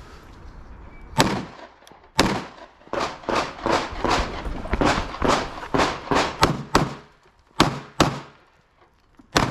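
A string of about fifteen 9mm shots from a CZ Shadow 2 Compact pistol: one about a second in, then a fast run roughly three shots a second, a short pause, and a few last shots near the end.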